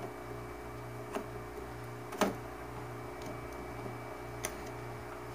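Four short sharp clicks of cables and connectors being handled at the TV's circuit boards, the second, about two seconds in, the loudest, over a steady low electrical hum.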